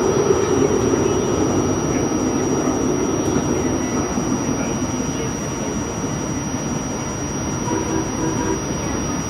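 RTA Blue Line light rail train running along the track: a steady rumble and rattle that eases a little about halfway through.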